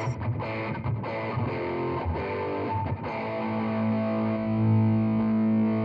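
Electric guitar played through distortion pedals: a few quick picked notes with short breaks, then a low note held and ringing from about three seconds in.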